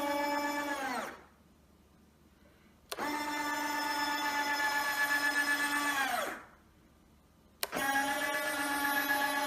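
Micro linear actuator's small geared motor whining steadily as it slides an RC airplane canopy. The whine winds down in pitch and stops about a second in, runs again for about three seconds, and starts a third time near the end.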